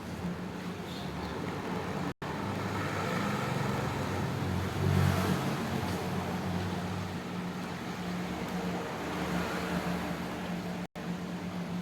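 Steady mechanical motor hum over a hiss, swelling briefly about five seconds in, broken by two very short dropouts.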